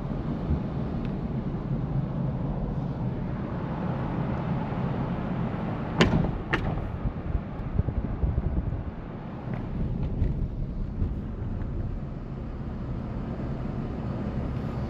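Car driving, with steady low road and engine noise. Two sharp knocks come close together about six seconds in.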